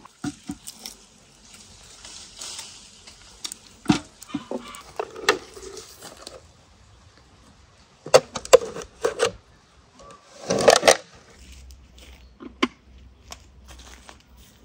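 Pear picking and handling: leaves and branches rustling, with a series of sharp knocks and clatter as pears and a galvanised metal bucket are handled, loudest in two short clusters past the middle.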